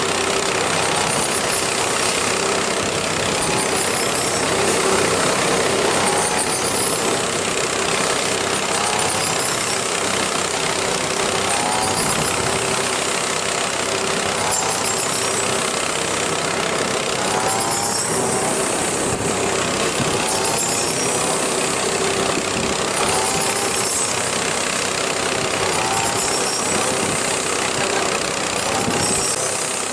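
A small engine running steadily at an even speed, with a steady hum and faint higher sounds recurring about every two seconds.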